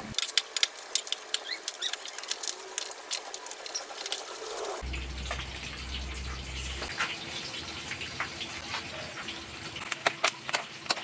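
Boiled pork pieces frying in hot oil in a wok, sizzling steadily, with the scattered clicks and scrapes of a metal spatula turning them against the pan.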